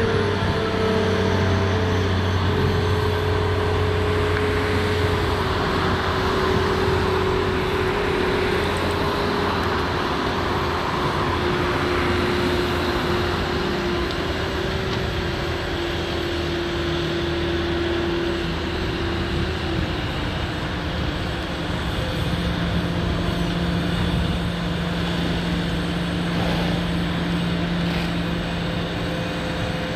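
Diesel engine of a large Terex mobile crane truck running steadily, its pitch slowly sinking and then changing about two-thirds of the way through, over a steady wash of background noise.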